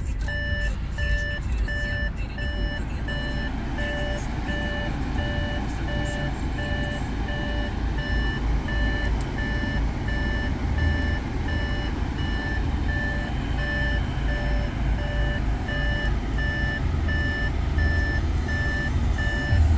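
2016 Audi A6 2.0 TDI four-cylinder diesel idling, heard from inside the cabin, with the car's electronic warning chime beeping over and over.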